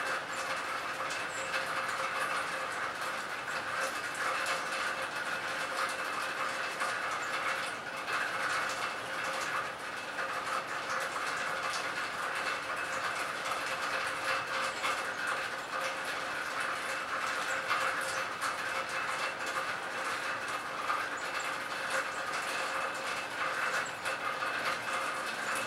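Steady rain falling on a lake, a dense even hiss of countless drops ticking on the water.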